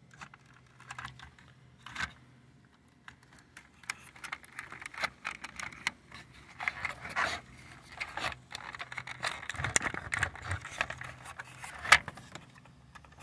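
Plastic armrest console and climate control parts being handled by hand: irregular clicks, rattles and scraping, with one sharp click near the end.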